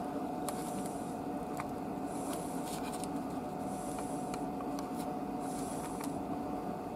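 Steady low workbench room noise with a faint constant whine. A soft hiss swells about every second and a half, and there are a few light clicks.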